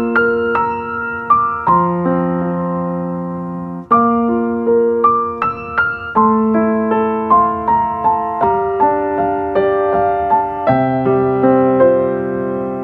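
Background music: a slow piano tune over held chords, each note struck and then fading, with a short break about four seconds in.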